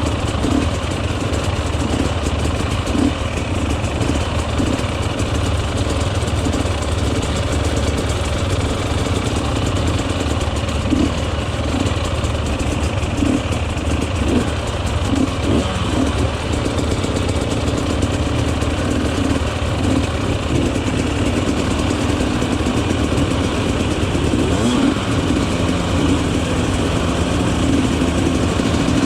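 Enduro motorcycle engine running steadily under way, with brief changes in revs here and there and the revs rising and falling near the end.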